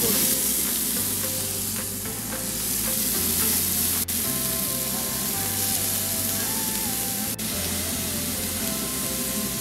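Thin-sliced beef sizzling on a hot tabletop Korean barbecue grill plate as it is turned with tongs, a steady hiss broken by two brief gaps. Background music with a melody and bass line plays along.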